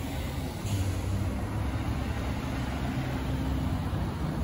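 Street traffic: a steady low rumble of cars driving past.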